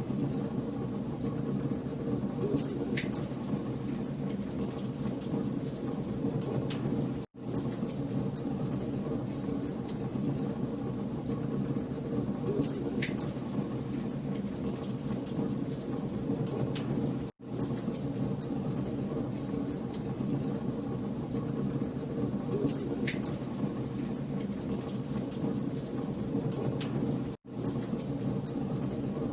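Wood fire crackling in a fireplace: a steady low rumble of flame with a dense run of small sharp pops and snaps. The sound cuts out for an instant three times, about ten seconds apart.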